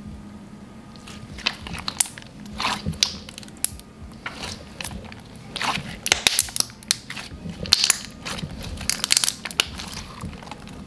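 Thick, glossy white Elmer's Gue Cookies and Cream slime being stretched, squeezed and poked by hand, giving irregular crackling clicks and pops. The crackles come thickest and loudest from about six seconds in.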